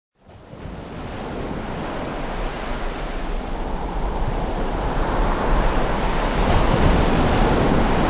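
A rushing noise with no pitch to it, like surf or wind, fading in from silence and growing steadily louder throughout: an intro sound effect building up under the title cards.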